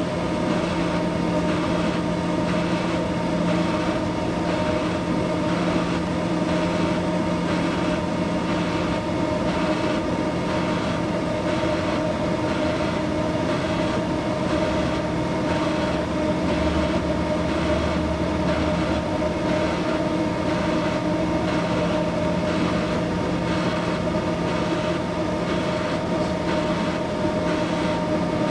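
Steady hum and buzz of an orbital TIG welding system running an automatic weld, the arc burning inside the enclosed weld head, with several steady tones over a constant noise.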